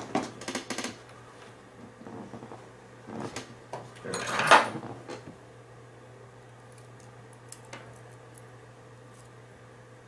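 Small metal clicks and rattles of a Mul-T-Lock interactive lock core and its loose pins being handled while a pin is worked out of the core, with the loudest rattle about four and a half seconds in and a few light ticks later on.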